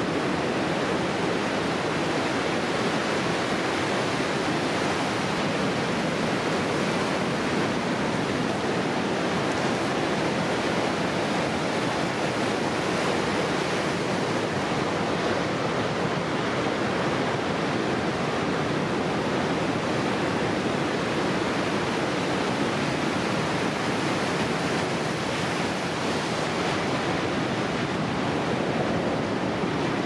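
Ocean surf breaking and washing ashore as a steady, unbroken rush of water.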